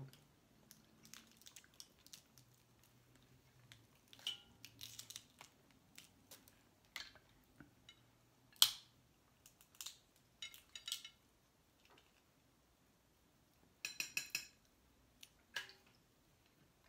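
Snow crab leg shells cracking and snapping as they are broken open and picked, with light clicks and clinks of shell and utensils on plates. One sharp crack comes about halfway through, and a quick run of about five cracks comes near the end.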